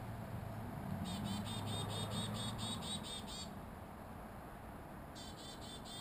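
A small songbird calling a series of evenly repeated high notes, about five a second, for a little over two seconds, then a shorter run of the same notes near the end. A low hum lies under it.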